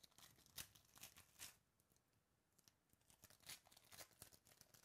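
Quiet crackling of a foil trading-card pack wrapper being torn open and crinkled by hand. It comes in two bouts with a pause of about a second between them.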